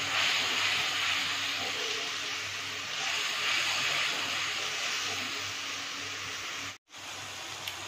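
Spice paste frying in hot oil in an aluminium kadai, sizzling steadily as it is stirred with a metal spatula. The masala is being fried down until the oil separates from it. The sound breaks off for a moment near the end.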